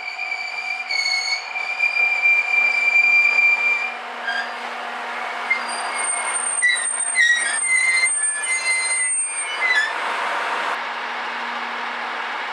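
Diesel railcar moving slowly through the station with high-pitched wheel and brake squeal: one long squeal for the first few seconds, then shifting squeals and clicks as it slows. About ten seconds in the squealing stops and a steady engine hum is left, consistent with the railcar idling after it stops.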